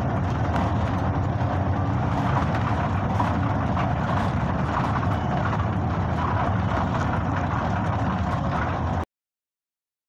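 Steady engine and road noise of a city bus in motion, heard from inside the cabin. It cuts off abruptly about nine seconds in.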